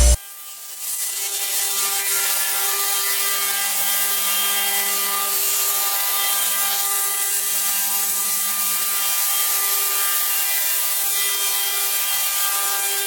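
Woodmaster WM-4x4H-CNC four-axis, 16-cutter chair-back milling machine cutting wood. Its spindles give a steady hum of several tones over a constant hiss of cutting, starting about a second in.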